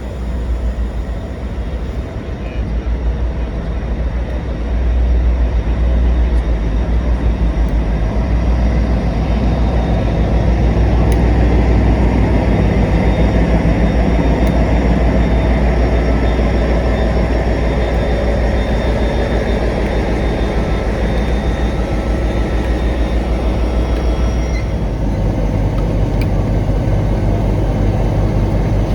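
A railway locomotive's engine running steadily with a deep, constant hum. The tone of the hum shifts a little about 25 seconds in.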